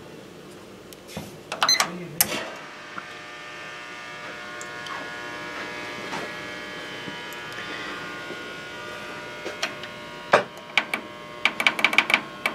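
Digital toaster oven switched on: a few clicks and a short beep, then a steady electrical hum. Near the end comes a quick run of clicks as the temperature setting is stepped up.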